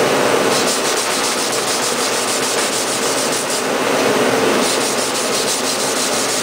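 Coarse sandpaper rubbed by hand over the back of a paper pattern pinned to a drywall-faced board, in quick back-and-forth strokes with a short pause midway. It is sanding off the little nibs left by a pounce wheel so the perforations stay open.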